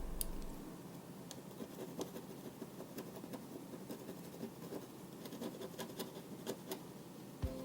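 Small hand tool scraping and scratching at corrosion inside a remote control, a run of irregular faint scratches and light clicks.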